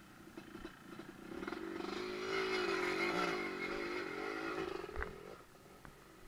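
Dirt bike engine revving up and pulling with a wavering pitch, then easing off about five seconds in. A short sharp knock is heard near the end.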